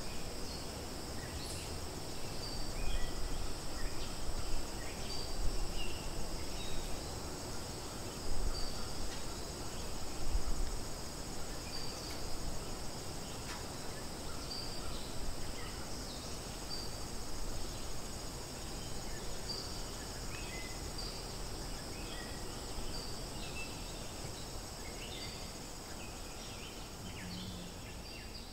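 Insects droning steadily at a high pitch, with scattered short bird chirps and a low rumbling noise that is loudest in the first ten seconds or so.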